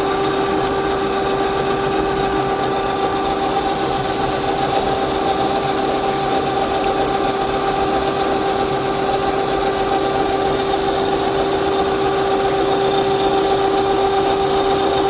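Metalworking machine tool running steadily with a constant hum-like whine over a broad noise, unchanging throughout.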